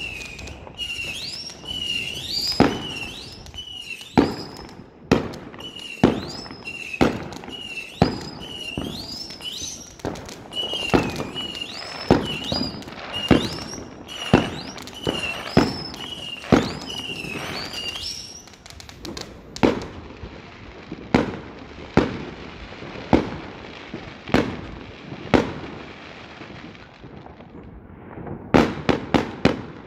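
Fireworks going off overhead: a long series of sharp bangs and crackles, many close together. Over the first two-thirds a high whistle rises in pitch again and again, then stops, leaving scattered bangs and a quick cluster of bangs near the end.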